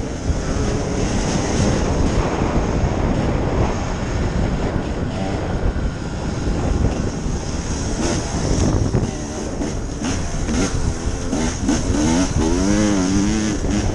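2014 Husqvarna TE300 two-stroke dirt bike engine running under riding, its pitch rising and falling quickly as the throttle is worked, with the revs swinging hardest near the end.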